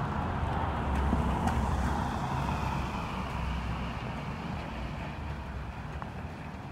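A car driving past on a wet road, its tyres hissing on the water, loudest a second or two in and then fading away.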